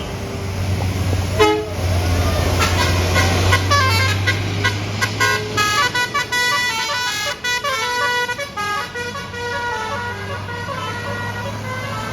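A bus's basuri multi-tone horn plays a stepping melody for several seconds, starting a couple of seconds in and fading near the end, over the steady low drone of the bus engine.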